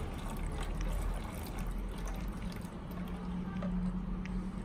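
Tap water pouring steadily from a coffee jug into the water tank of a DeLonghi drip coffee maker.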